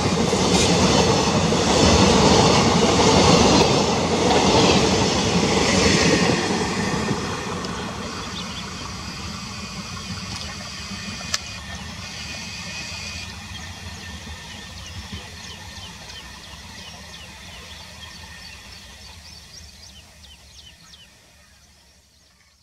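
Indian Railways passenger train's blue second-class coaches rolling close past, wheels clattering over the rail joints, then the sound fading steadily as the last coach draws away around a curve.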